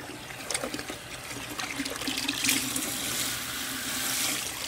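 Water running steadily into a bucket as it is filled, growing louder over the first couple of seconds.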